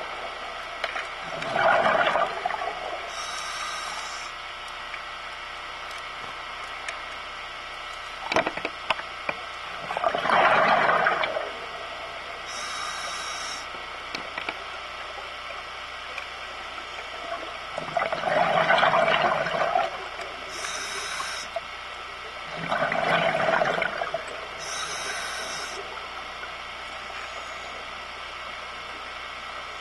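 Scuba regulator breathing heard underwater: a short high hiss as air is drawn through the demand valve, then a gurgling rush of exhaled bubbles lasting a second or two, repeated about four times. A single sharp click comes about eight seconds in.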